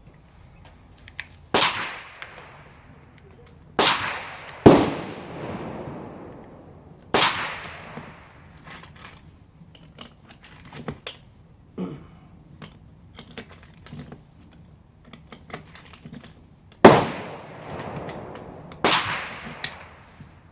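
Pistol gunshots: six shots at uneven intervals, the loudest about five and seventeen seconds in, each followed by a fading ring, with smaller clicks and knocks in between.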